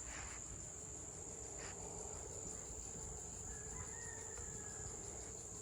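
Steady, high-pitched insect chorus, a continuous shrill trilling drone, with a faint short whistle partway through.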